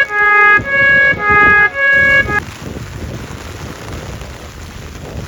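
A short intro melody of bright pitched notes, about one every half second, stopping about two and a half seconds in. A steady hiss of heavy rain follows.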